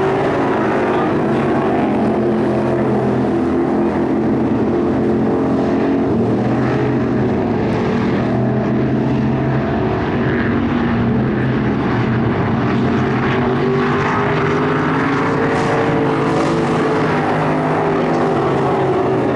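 Several race car engines running together on the track, their pitches rising and falling as they go around.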